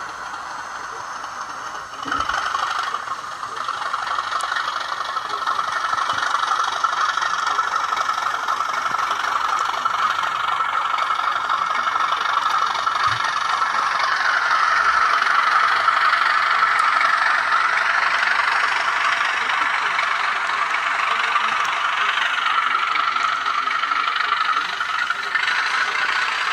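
Diesel engine sound from a DCC sound decoder, played through the small speaker of an N gauge model train. It runs steadily, gets louder about two seconds in, and has a rattling, tinny quality.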